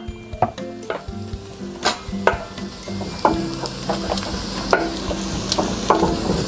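Minced garlic sizzling in melted butter in a stainless steel pot as it turns golden brown, stirred with a wooden spoon that scrapes and clicks against the pan many times.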